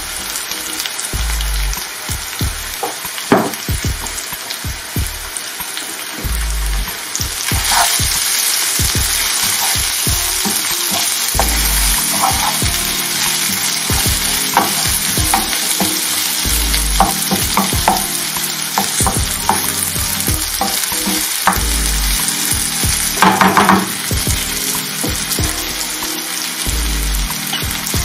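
Sliced raw potatoes, red pepper and onion sizzling as they fry in a non-stick pan, stirred with a wooden spatula that scrapes and knocks against the pan. The sizzle gets louder about seven seconds in.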